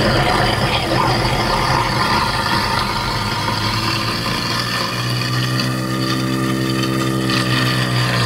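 Kitchen garbage disposal running loaded with ice cubes, baking soda and vinegar. It grinds and rattles harshly at first, then about five seconds in it settles into a steady motor hum as the ice clears. The tap runs into the drain throughout.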